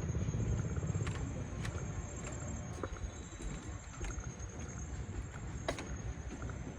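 Steady low rumble of a motor boat under way, with a few sharp clicks and a thin, steady high-pitched tone.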